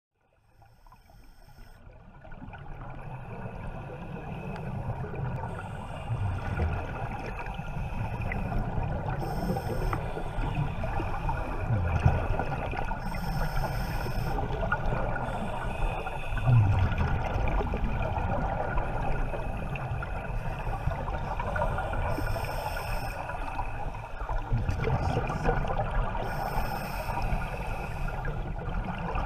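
Scuba divers breathing underwater through regulators: a short hiss of inhalation every few seconds and the low gurgle of exhaled bubbles, fading in over the first couple of seconds.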